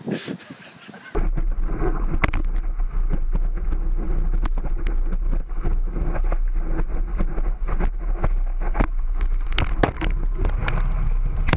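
Wind buffeting the microphone of an action camera mounted on a surfboard's nose, over rushing surf, with many sharp knocks and splashes. It starts abruptly about a second in as a loud, steady low rumble.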